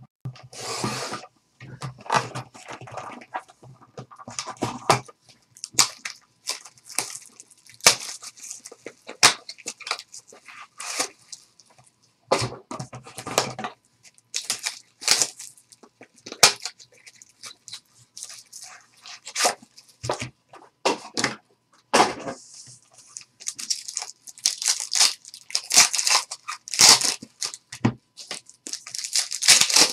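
Plastic shrink wrap being torn off a 2013-14 Panini Select basketball trading-card box, then the box opened and its foil card packs lifted out and set down: irregular crinkling and tearing with light cardboard taps and clicks.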